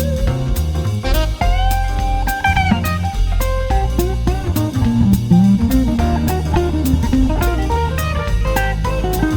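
Background music: an instrumental jazz-blues track with guitar over a steady drum-kit beat.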